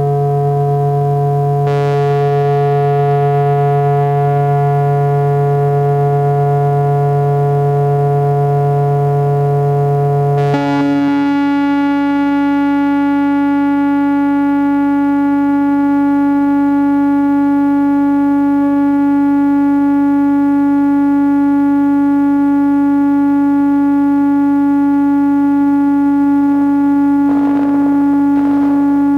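Modular synthesizer drone run through a Korg Monotron Delay: long held tones with a dense stack of overtones. About ten seconds in, the low note drops out and a new, higher held note takes over, and the sound shifts again near the end.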